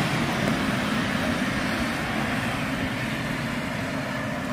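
Tyres of a passing vehicle hissing on a wet road, a steady rushing sound that slowly fades as the vehicle moves away.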